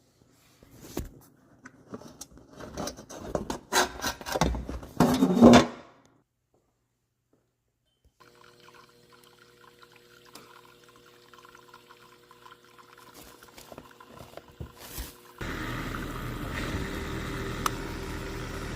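Water splashing and gurgling unevenly for about six seconds, loudest near the end. After a short gap, a faint steady hum with two held tones, and from about three-quarters of the way through a louder steady machine run.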